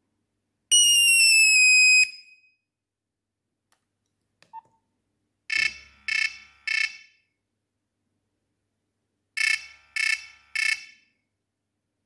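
Nokia 3310 ringtone previews through the phone's small speaker. First a loud single tone slides slightly downward for about a second and cuts off. After a faint click, the next ringtone plays a group of three short beeps, and the group repeats about four seconds later.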